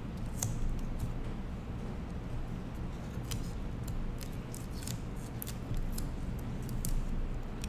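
Masking tape handled by fingers on a wooden board, peeled up and pressed down to hold a wire: scattered small crinkles and clicks over a steady low hum.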